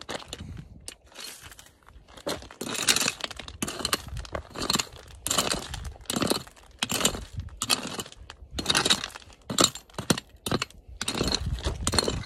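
A hand pick digging into stony, gravelly ground with hands scraping the loose dirt aside: irregular crunching strokes, one or two a second, while a strong metal-detector target is dug out.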